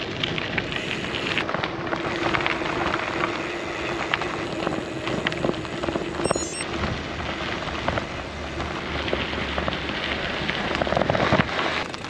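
Bicycle tyres rolling over a gravel track: a dense, continuous crackle of small crunches and clicks with a steady low hum beneath, growing louder near the end.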